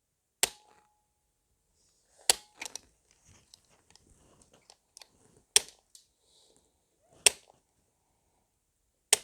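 Activator V chiropractic adjusting instrument firing five sharp clicks, one and a half to three seconds apart, as it delivers impulses to the C2 vertebra of the neck. A few fainter ticks and rustles fall between the clicks.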